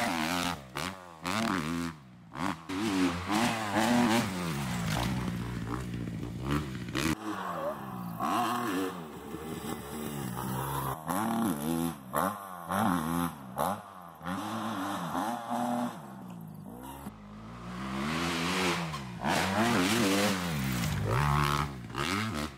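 Dirt bike engine revving up and falling off again and again as the rider accelerates, shifts and backs off over the jumps. The sound changes abruptly twice where the recording cuts.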